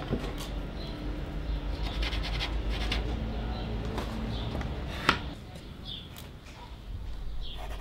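Scratching and rubbing as a piece of board is pressed against the layout's ramp and worked with a pencil, with scattered light clicks over a steady low hum.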